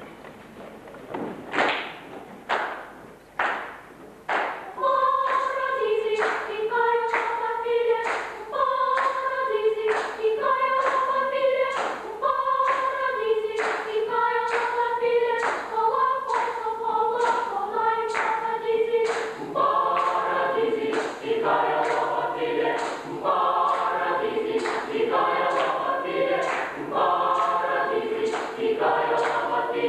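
Boys' choir singing a rhythmic song a cappella in parts, with hand claps on a steady beat about twice a second. A few claps come first, the voices enter about five seconds in, and more parts join after about twenty seconds.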